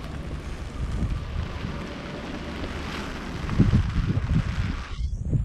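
Strong wind blowing over the microphone: a steady hiss with low buffeting rumble that gusts harder about three and a half seconds in. The hiss cuts out abruptly just before the end.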